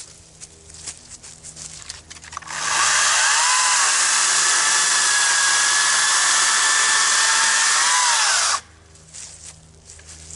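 Greenworks 60V cordless brushless electric chainsaw spinning up with a high whine, cutting through an ash log for about six seconds, then winding down. Before it, a few light knocks of wood being handled.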